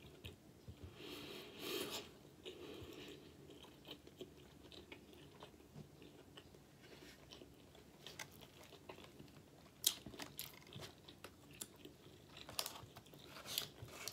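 Faint close-up chewing of a pulled-pork burger on a pretzel bun: soft, wet mouth sounds with scattered small clicks, and a few sharper clicks in the last few seconds.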